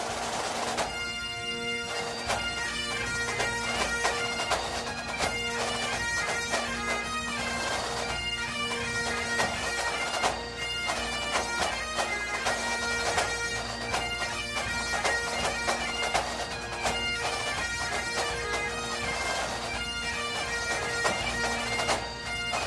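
Bagpipe music: a chanter melody played over steady, unchanging drones.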